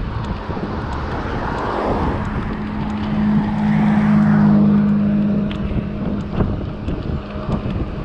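Wind buffeting the microphone of a moving bicycle, with a motor vehicle passing: its engine hum swells about three seconds in, peaks near the middle and fades away.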